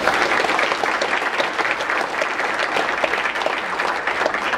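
An audience applauding, many hands clapping steadily and loudly.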